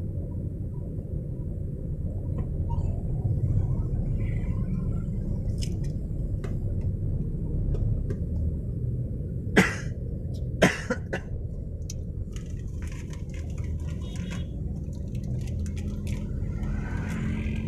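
Car cabin rumble from road and engine while driving, steady throughout. Near the middle come two sharp knocks about a second apart, the loudest sounds here.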